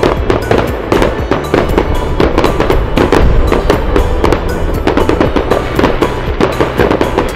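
Fireworks going off in rapid succession, many sharp bangs and crackles close together, with music playing underneath.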